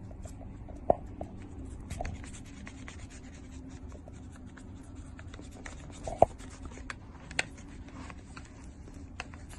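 Light scratching and rustling with many small clicks, and three sharper taps, the loudest about six seconds in.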